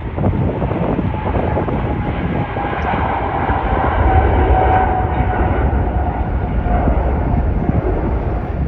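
Jet airliner's engines passing close by, a loud steady roar with an engine whine that slowly falls in pitch.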